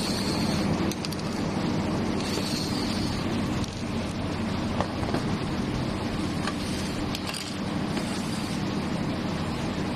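A steady low mechanical hum runs throughout. A cordless drill runs briefly in the first second as it bores into a plastic roller-blind end bracket. A few light clicks come from the plastic parts being handled.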